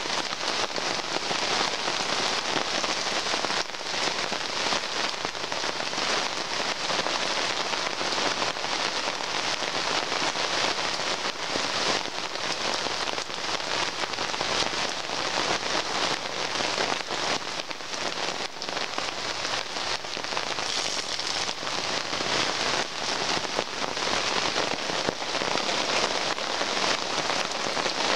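Heavy rain falling steadily, a dense hiss of drops hitting the tarp and tent fly overhead and the gravel campsite.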